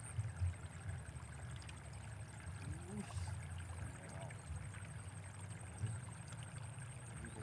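Low, fluttering rumble of wind on the microphone in open air, with faint men's voices talking briefly about three seconds in and a thin steady high-pitched whine.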